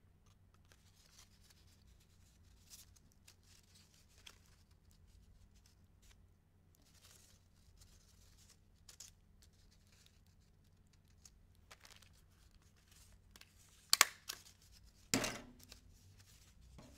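Faint rustling of paper strips being handled, then two sharp snaps about a second apart near the end as a desk stapler is pressed shut on the paper pumpkin strips.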